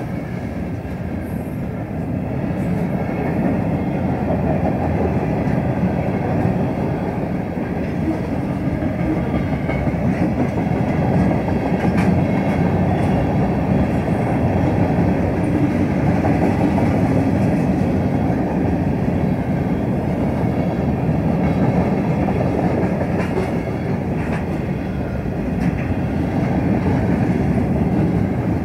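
Freight train of tank cars, covered hoppers and boxcars rolling past, its steel wheels running steadily on the rails, with an occasional faint click.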